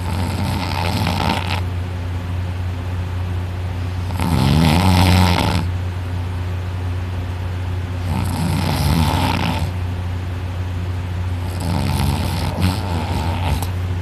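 A person snoring heavily while passed out drunk, lying flat on the back, with the soft palate and uvula rattling. Four long snores come about every four seconds, the second the loudest, over a steady low hum.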